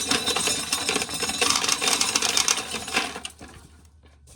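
Ear of dried corn being shelled: a dense rattle of kernels stripping off the cob and pattering down, dying away after about three seconds.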